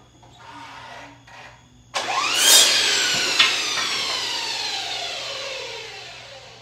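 Electric miter saw: a board is set in place with some light rubbing, then about two seconds in the saw starts with a rising whine and cuts through a wooden slat. There is a sharp click about a second later, and the blade winds down with a falling whine that fades over several seconds.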